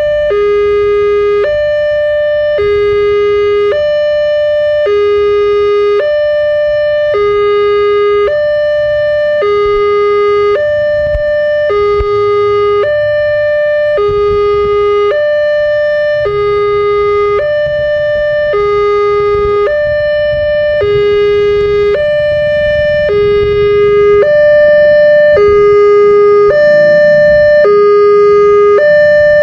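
Railway level-crossing warning siren sounding its alarm, alternating steadily between a low and a high tone about once a second: the signal that a train is approaching and the barrier is closed. A low rumble underneath grows louder in the last few seconds.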